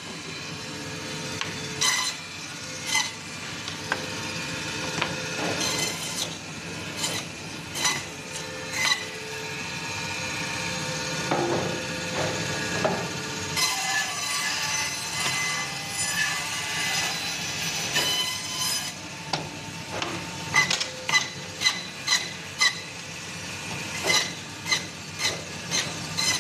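Butcher's band saw running, its blade cutting through bone-in meat, with many short sharp clacks as cut pieces are pushed across and land on the steel table. About halfway through comes a longer cut of several seconds, louder and hissier.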